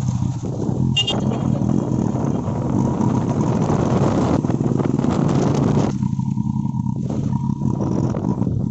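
A motor vehicle's engine running steadily while driving along, with road and wind noise.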